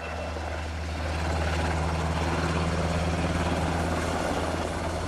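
UH-60 Black Hawk helicopter running close by: a steady, loud low rotor drone with a rushing hiss of its turbine engines, swelling over the first second and then holding.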